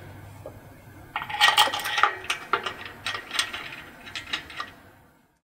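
Metal clinking and clicking as a bolt and thick washer are worked through a factory LSA belt tensioner into its billet aluminium bracket, in a quick irregular run of small metallic taps. The sound cuts off to silence just before the end.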